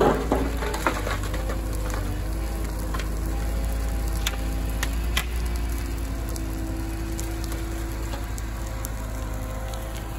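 Burning pile of green conifer branches crackling, with sharp pops in the first second and twice near the middle. Under it, a Liebherr wheeled excavator's diesel engine runs steadily as it loads brush.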